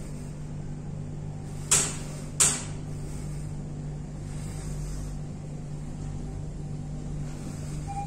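Mitsubishi passenger elevator car travelling upward, with a steady low hum. Two sharp clicks come about two seconds in, less than a second apart.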